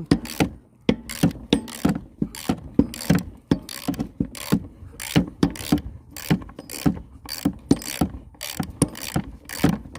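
Half-inch-drive socket ratchet clicking steadily, about three clicks a second, as it is worked back and forth to loosen a lawnmower engine's mounting bolt.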